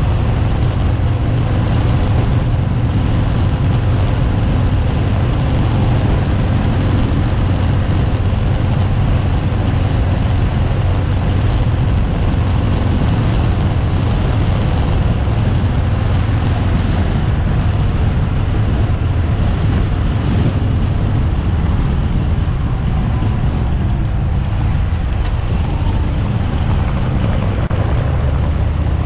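2018 Harley-Davidson Fat Bob's Milwaukee-Eight V-twin engine running steadily under way, with wind noise over a handlebar-mounted GoPro microphone.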